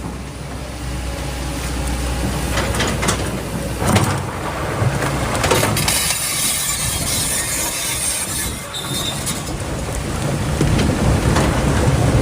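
Excavator working: its engine running under a steady rumble, with rattling, scraping and a few sharp knocks, about 4 and 6 seconds in.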